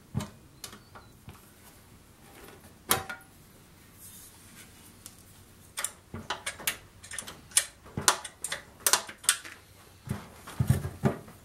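Wrench and metal parts on a small engine being unbolted: irregular sharp clicks and metallic taps, coming thickest in the second half, with a few duller knocks near the end as the fuel tank is worked loose.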